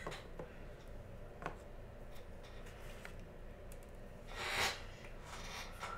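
Quiet handling of trading cards: a few faint light clicks and one short rustle about four and a half seconds in.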